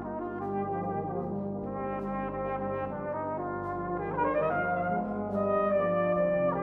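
Brass band playing held chords. Part of the band slides upward in pitch about four seconds in, and the playing grows louder toward the end.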